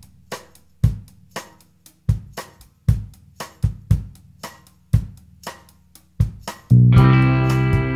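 Drum kit playing a rock beat with kick, snare, hi-hat and cymbals: the opening of a song. Near the end the rest of the band comes in loud with sustained guitar chords.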